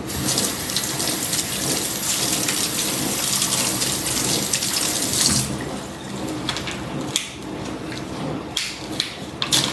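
Kitchen tap running steadily, shut off suddenly about five seconds in, followed by a few sharp clicks near the end.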